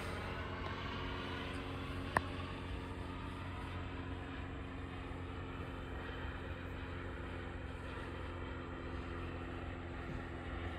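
Engine of a CARF Rookie radio-controlled model jet running steadily, heard as a continuous drone. A single short sharp click about two seconds in.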